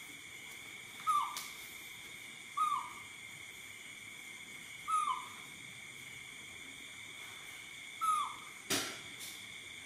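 An animal making four short calls, each dropping quickly in pitch, a few seconds apart. A sharp click comes near the end, over a steady high hum.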